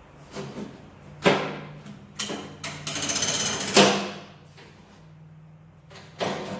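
Hammer blows on steel, about six sharp strikes spread unevenly, with a rapid rattling buzz lasting about a second in the middle.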